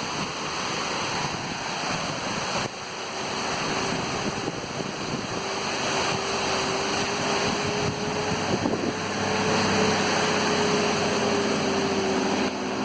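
Rushing waterfall, a steady roar of water that slowly grows louder. A steady hum from an unseen source joins it a few seconds in.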